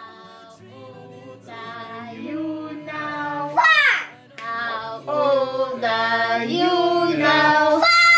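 People singing, a child's voice among them, over steady background music, with a high falling whoop about midway and another at the end.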